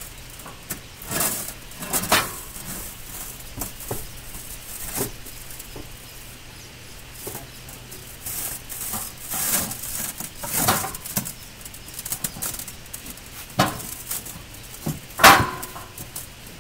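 Scattered knocks and clanks of heavy steel parts of a manual egg-laying concrete block moulding machine being handled as the ram carrier is lifted and worked into the holes of the brain box. The loudest is a sharp metal clank about 15 seconds in, ringing briefly.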